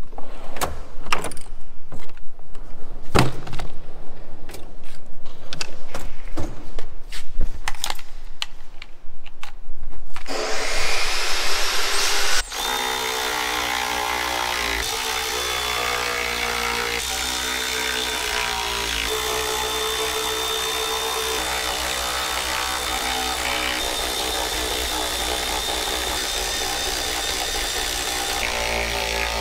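Cordless ratchet and metal fastening noise as the tail fin protector plates are bolted onto the combine: rapid, irregular clicks and knocks. About ten seconds in this gives way to steady background music with chords that change every second or so.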